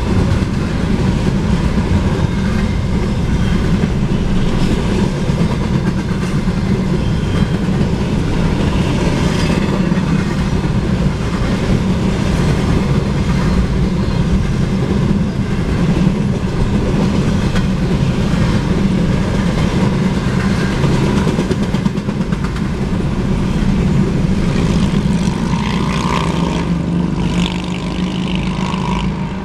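Double-stack intermodal freight cars of a passing freight train rolling by, their steel wheels on the rails making a loud, steady rumble. The train's tail passes near the end and the noise starts to drop.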